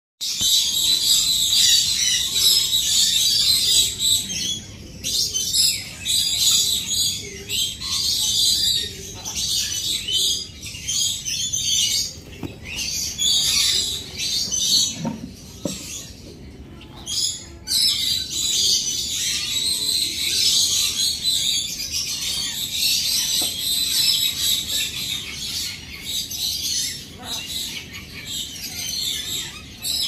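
A group of caged finches, fawn cherry finches among them, chirping and twittering in a dense high-pitched chatter, with a short lull a little past the middle.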